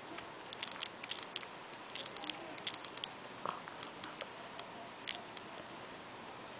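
Faint, irregular clicking of a BlackBerry Curve's buttons being pressed to scroll through its menus, some clicks coming in quick clusters.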